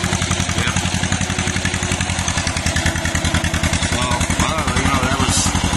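Vintage John Deere crawler bulldozer engine running steadily, with a fast, even exhaust pulse.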